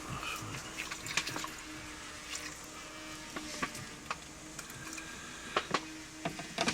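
Scattered small clicks and light knocks of hand work at the car's dashboard, fastening an aftermarket interface's grounding wire to a metal point, with a cluster of sharper clicks near the end over a faint steady hum.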